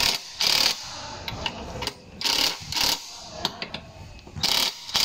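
Cordless power driver spinning and rattling in about five short trigger bursts on the scooter's grab-bar bolts, with small metallic clicks between bursts.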